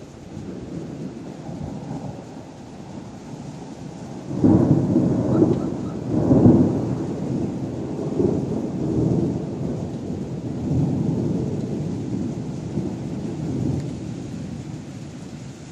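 Thunder: a sudden clap about four seconds in, swelling again about two seconds later, then a long low rumble that rolls on and slowly fades. Steady heavy rain runs underneath.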